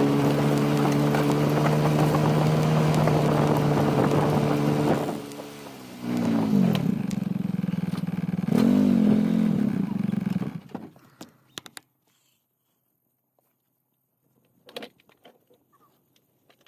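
A vehicle engine running steadily, dipping and swelling in pitch twice, then shutting off about eleven seconds in; a couple of faint knocks follow.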